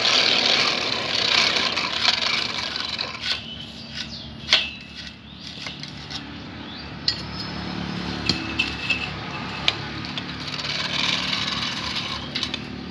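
Hand-cranked forge blower whirring for about three seconds while it blows air into a charcoal fire, then stopping. After that come scattered metal clinks and taps as steel saw blades and a clamp are handled, over a low steady hum.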